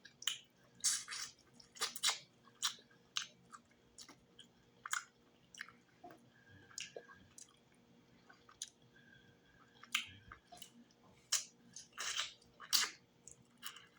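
Close-miked chewing and mouth smacks, with irregular short, wet clicks about one or two a second, from someone eating fufu with okra stew and fried fish.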